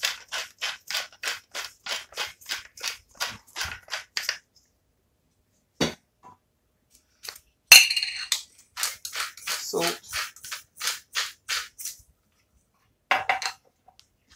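Hand pepper mill grinding black peppercorns, a quick run of short crackling strokes at about four a second for the first four seconds or so. Then come a single knock, a louder clatter, a second spell of uneven grinding strokes and a short clack near the end.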